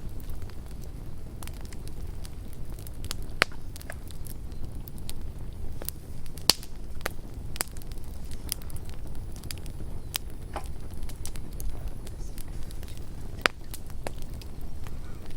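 Campfire burning, with a steady low rumble and irregular sharp pops and crackles of the wood, several louder snaps scattered through it.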